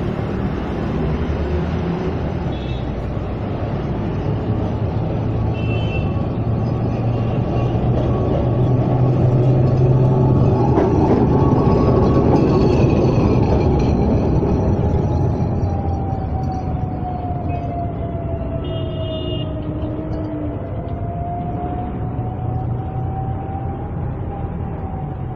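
Kolkata electric tram running along its track, its rumble swelling as it comes up close and passes, then slowly fading as it moves away. A long whine that wavers up and down in pitch runs through the second half, over a steady low hum.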